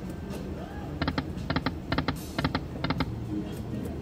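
Dollar Storm Emperor's Treasure video slot machine spinning its reels, with its quick clusters of sharp electronic clicks repeating about every half second as the reels run and stop.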